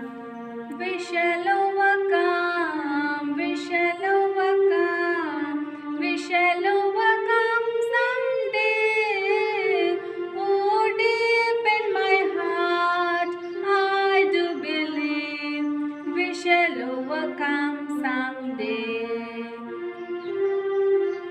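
A woman singing a prayer song solo, a single melodic line sung without a break.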